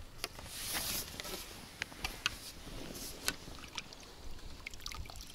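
Water splashing as a small fish is brought in with a landing net in shallow river water: a short burst of splashing about half a second in, then scattered sharp ticks of dripping and net movement.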